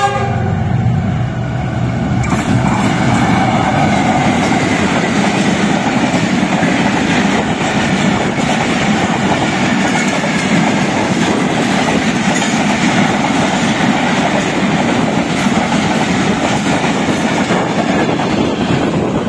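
Passenger train led by a GEU-40 diesel-electric locomotive passing at speed, its coaches running by close with a steady, loud rumble and rattle of wheels on the rails.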